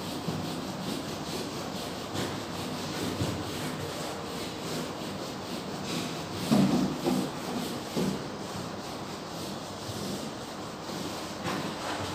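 Whiteboard eraser rubbing writing off a whiteboard in repeated back-and-forth strokes, loudest a little past halfway.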